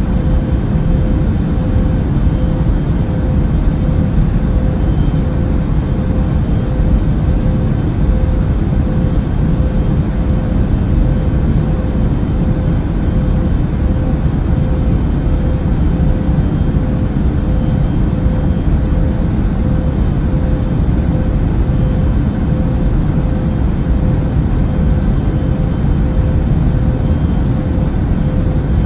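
Airbus A380 cabin noise in cruise flight: a steady, deep rumble of engines and airflow with a faint steady hum above it.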